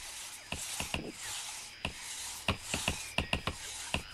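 Axes striking tree trunks: many sharp, irregular knocks, some in quick clusters, over a steady high hiss.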